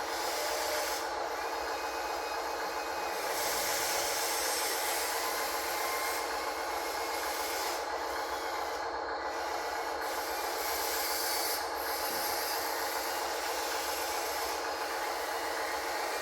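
Small electric motors and gearboxes of a radio-controlled construction model running steadily with a whine, under a rough scraping hiss that drops away briefly a few times.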